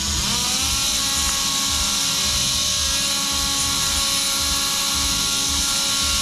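Synthes Colibri II battery-powered surgical drive running steadily with a high hiss, cutting bone down to a flatter surface. Its pitch rises briefly as it spins up at the start, then holds.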